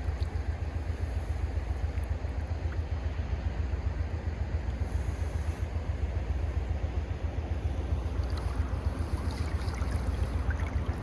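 Steady rushing noise of flowing creek water with wind rumbling on the microphone, with no distinct events.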